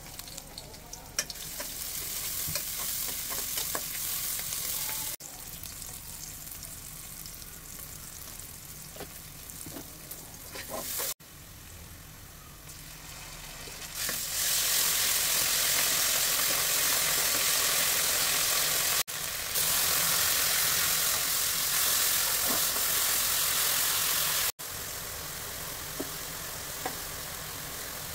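Sliced onions sizzling in hot oil in a steel pan, with a spatula stirring and scraping against the metal. The sizzle grows much louder about halfway through and breaks off abruptly a few times.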